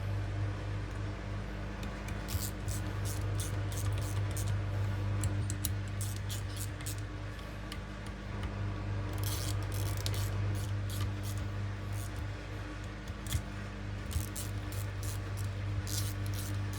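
Irregular light clicks and ticks of small metal parts being handled and seated while solenoids are fitted into a VW 01M automatic transmission valve body, over a steady low hum.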